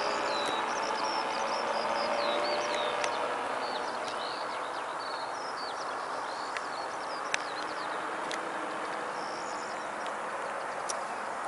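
Faint drone of a powered paraglider's motor flying overhead, fading away after about four seconds. Small birds chirp throughout, with a few sharp clicks.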